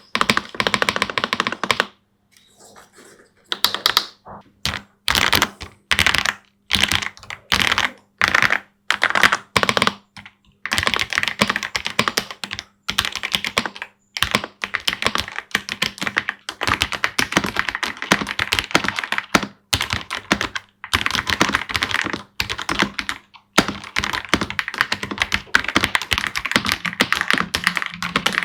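Typing on a Ganss GS3108T Pro mechanical keyboard. Single keystrokes and short groups for the first ten seconds or so, then steady fast typing with brief pauses.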